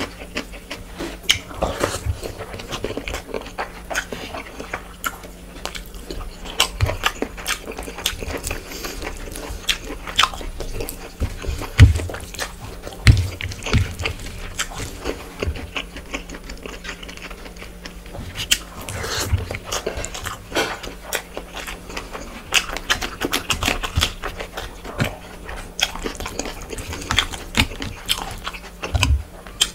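Close-miked eating: chewing and lip-smacking with many short wet clicks, while a hand squishes and mixes rice and curry on a steel plate. A few louder knocks stand out, the loudest about twelve seconds in.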